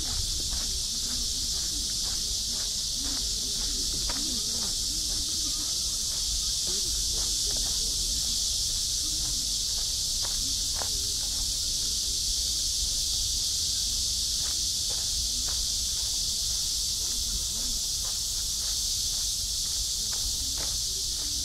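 Steady high-pitched chorus of insects, with faint distant voices and footsteps underneath.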